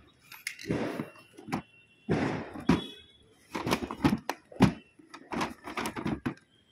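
An irregular series of short thuds and pops, about a dozen, some louder than others.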